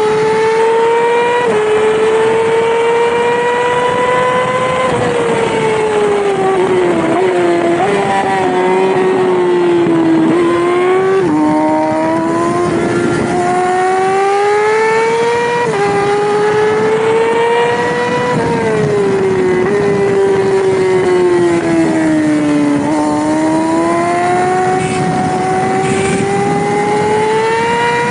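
Yamaha R6 600cc inline-four racing engine at high revs, its note climbing under acceleration and falling away under braking, with several sudden jumps in pitch at gear changes.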